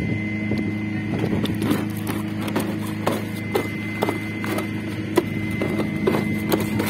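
Steady machine hum, with irregular light knocks and clicks of a plastic bucket being gripped and shifted by a toddler.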